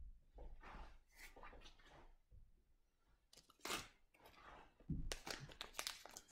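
Faint, irregular rustling and clicking of things being handled close to the microphone, with a louder crackle in the middle and a burst of them near the end.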